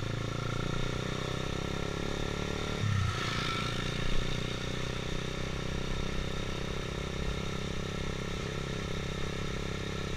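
Honda CBR150R motorcycle's single-cylinder engine running steadily while riding, changing briefly about three seconds in.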